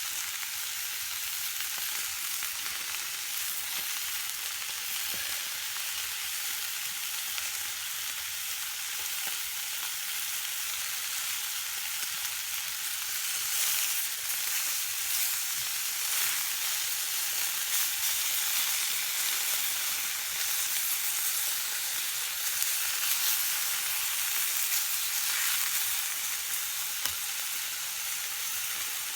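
Chicken fillets sizzling steadily in a wok over campfire embers, a little louder in the middle.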